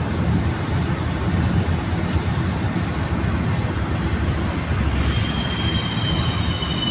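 Road and tyre noise heard inside a moving car's cabin on a highway, a steady rumble. About five seconds in, a thin high whine joins it.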